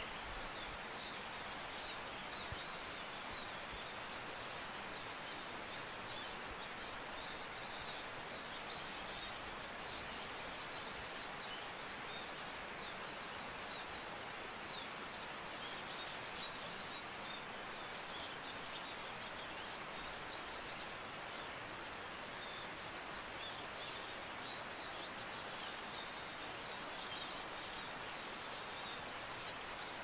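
Small birds chirping and calling here and there over a steady, even hiss of outdoor background noise.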